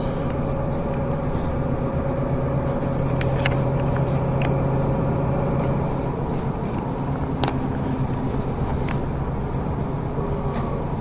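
City bus driving, heard from inside the passenger cabin: a steady engine hum and road noise, with a whine that stops about six seconds in and a few light clicks and rattles.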